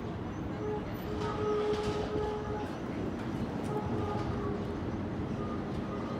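PCC streetcar moving slowly on its rails, a steady rumble with a pitched whine that comes in about a second in, fades, and returns briefly near the middle.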